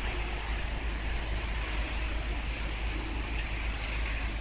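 Wind buffeting the microphone with a steady low rumble, over a constant wash of street traffic.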